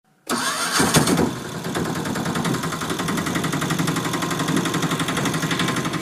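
An auto rickshaw engine starts, catching about a quarter second in, and then settles into a steady, even idle.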